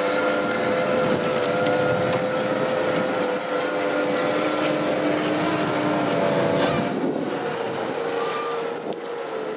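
ROPA Tiger 6 self-propelled sugar beet harvester running while lifting beets: steady engine and machinery noise with a constant whine, easing off a little near the end.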